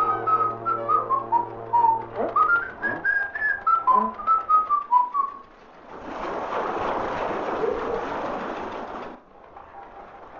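A tune whistled in short stepping notes, with a few upward slides, over a low steady hum for about five seconds. After a brief dip comes a steady rushing noise lasting about three seconds, which then drops away.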